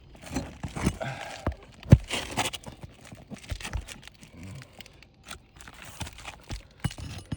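Brittle asphalt shingles being pried up and their nails worked loose: crackling, scraping and tearing of the shingle material, with scattered clicks and a sharp knock about two seconds in. The shingles are so brittle that they rip at the nail holes as they are lifted.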